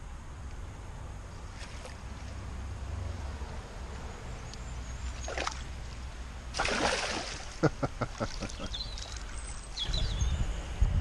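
Water splashing as a landing net is dipped into the canal and a released pike swims out of it, loudest about halfway through, followed by short drips and trickles as the wet mesh is lifted clear. A low wind rumble on the microphone runs underneath and grows stronger near the end.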